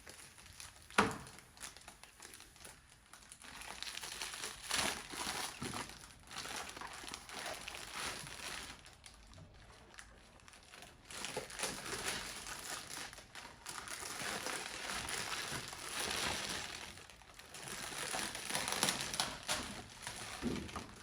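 Gift wrapping being handled and pulled open, crinkling and rustling in stretches that come and go, with a sharp knock about a second in.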